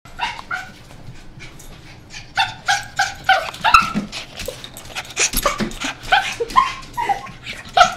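Small dog whining and yipping excitedly in a rapid string of short, high, falling cries. The cries are sparse at first and come thick and loud from about two and a half seconds in. It is an over-excited greeting.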